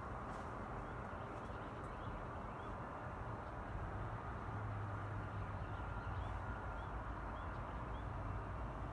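Steady low outdoor rumble, with faint short chirps of small birds a few times in the second half.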